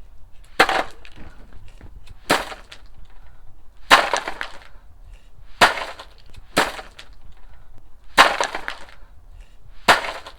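Broom whacking a gingerbread house: seven hard strikes about every second and a half, each breaking up gingerbread and candy.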